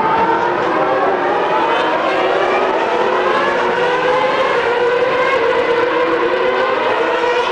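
A pack of 2009 Formula One cars' 2.4-litre V8 engines running at high revs through a corner, with several engine notes overlapping and rising and falling in pitch.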